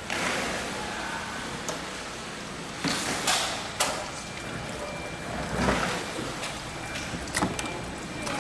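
Steady background noise with several short scrapes and knocks of a knife working along a mahi-mahi fillet on a cutting board as it is skinned and trimmed.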